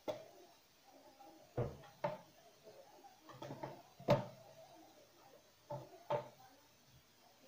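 Hands working soft bread dough in a bowl, giving a string of dull thumps and knocks, about seven of them, the loudest a little past the middle.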